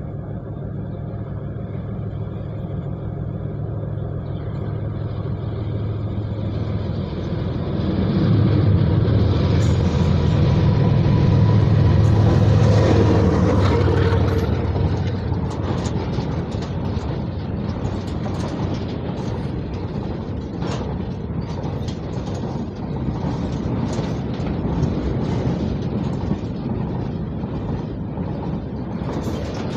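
A WDG4G diesel freight locomotive approaches and passes close by, its engine drone building to its loudest about a third of the way in. Its freight wagons then roll past with a steady rumble and a rapid clatter of wheels over the rail joints.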